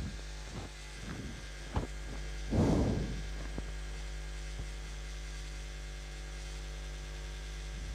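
Steady electrical hum with a few light clicks and taps of a plastic phone-holder clamp being handled, and one short louder sound about two and a half seconds in.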